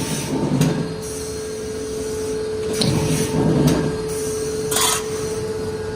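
AMADA M-2545 shearing machine running with a steady motor hum, making two working strokes about three seconds apart, each a rumble with sharp clicks, and a short hiss just before the end.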